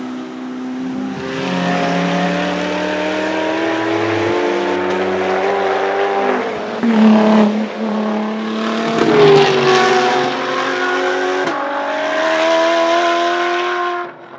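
High-performance car engines accelerating hard uphill. The pitch climbs steadily through each gear, with sharp breaks at gear changes about seven and nine seconds in. The sound cuts off abruptly near the end.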